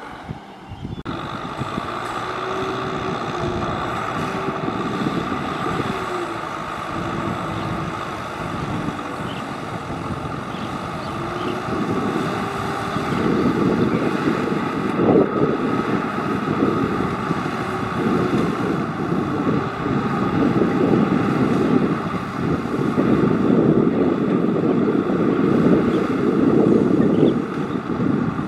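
Tractor engine running hard under load, its pitch wavering, growing louder and rougher about halfway through and again for a stretch near the end.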